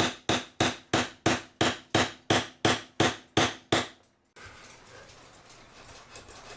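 Light, rapid hammer taps, about three a second, driving a putty knife in behind a glued-in cuckoo clock whistle box to break it loose. The tapping stops about four seconds in.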